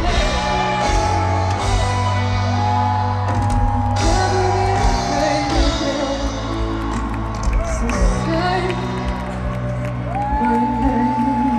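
Live band music heard through a festival PA from within the crowd: a woman sings long held notes that glide between pitches over a steady band backing with sustained bass.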